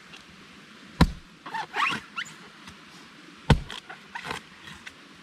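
Two sharp knocks about two and a half seconds apart, with a brief high squeaky, wavering sound between them.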